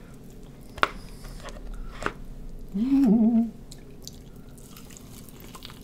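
A person eating chicken wings gives a short closed-mouth 'mmm' of enjoyment about three seconds in, after two sharp clicks of eating.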